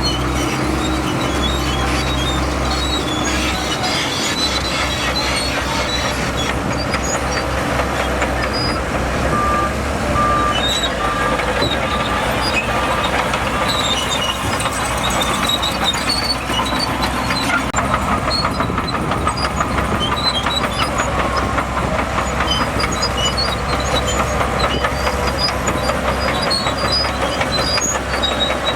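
Shantui DH17C2 crawler bulldozer working, its diesel engine running steadily under dense clanking of the steel tracks. A reversing alarm beeps about six times, roughly one beep a second, in the middle.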